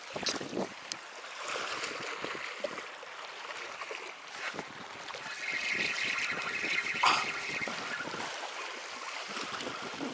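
Seawater lapping and trickling among shoreline rocks, with a few light clicks.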